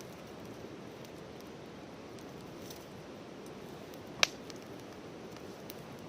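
Wood campfire burning with a steady low hiss and a few faint crackles, and one sharp pop about four seconds in.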